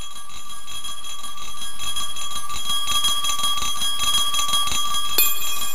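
A small bell ringing steadily, with one sharper strike near the end.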